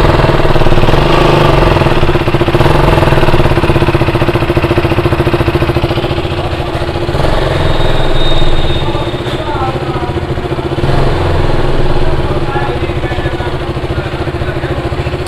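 KTM Duke 200's single-cylinder four-stroke engine running steadily after a rebuild, now starting with its timing chain set and cam timing corrected. The level swells briefly about eight seconds in and again around eleven seconds, and the sound stops abruptly at the end.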